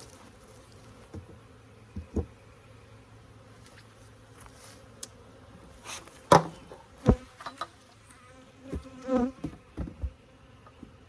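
Honeybees buzzing steadily around an open hive, with a few sharp wooden knocks, the loudest about six and seven seconds in, as the hive is closed back up.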